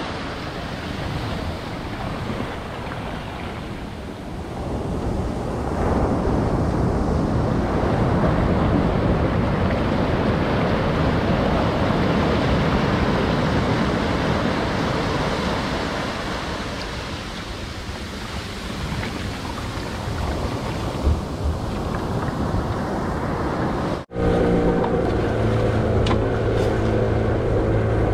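Wind on the microphone and the rush of water along a moving outrigger boat, a steady noisy rush that grows louder about six seconds in. After a sudden cut near the end, the boat's engine runs with a steady hum.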